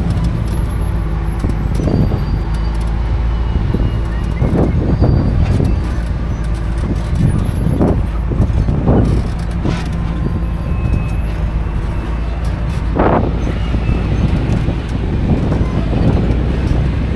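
An off-road vehicle's engine runs steadily as it drives slowly along a dirt track, making a low drone throughout. Several brief, louder rushes of noise rise over it.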